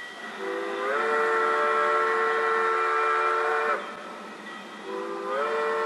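Steam-train chime whistle blown in two long blasts of several notes at once. The first lasts about three seconds and slides up in pitch as it opens; the second starts about five seconds in.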